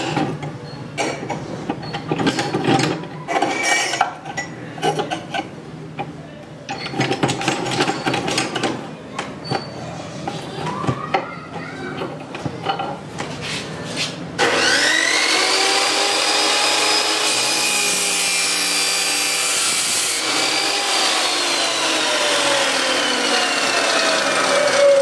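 Metal clicks and rubbing as the cut-off saw's vise is slid and its screw handle worked. About halfway through, the INGCO 2350 W 355 mm cut-off saw's motor switches on and quickly spins up to a steady whine. A few seconds later it is switched off and winds down, its whine falling steadily in pitch.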